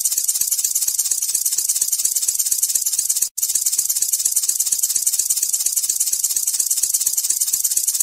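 Looped snake sound effect: a steady, high hissing rattle over a quick low pulsing of about six beats a second, cutting out for an instant about three seconds in.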